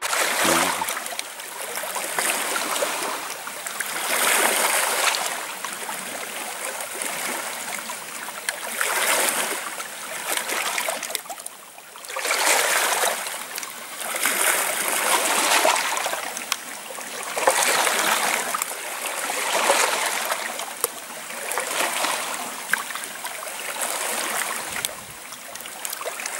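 Small waves washing onto an estuary shore, the wash swelling and fading about every two seconds.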